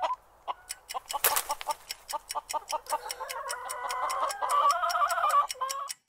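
Chicken clucking over the quick, steady ticking of a countdown clock; the clucking grows busier in the second half.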